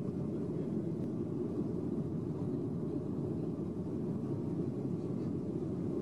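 Steady low rumble of a Boeing 737's jet engines and airflow, heard inside the cabin by the wing as the airliner climbs out after takeoff.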